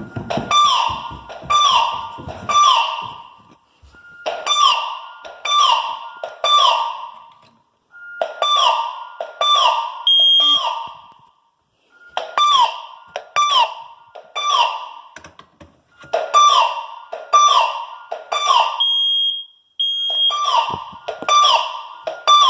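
Fire alarm sounding the temporal-three evacuation pattern: three loud pulses about a second apart, then a short pause, repeating, each pulse a slightly falling tone. A brief high steady beep cuts in between the groups twice, about ten seconds in and again near the end.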